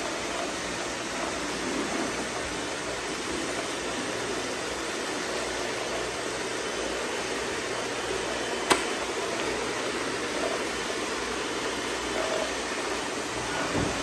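Robot vacuum cleaners, a Pure Clean one close by, running over a concrete floor: a steady whir of suction fans and spinning side brushes. A single sharp click a little past halfway.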